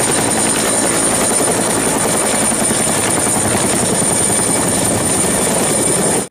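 Two-bladed helicopter flying low, its rotor beating in rapid steady thumps with a thin high whine over it. It starts and stops abruptly.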